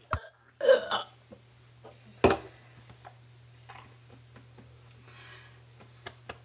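A single short, weak burp about half a second in, judged a poor one, then a sharp knock about two seconds in, over a steady low hum.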